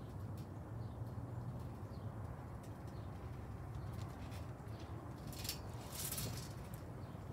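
Quiet outdoor ambience: a steady low rumble with a few faint, distant bird chirps, and a short crackling rustle about five to six seconds in.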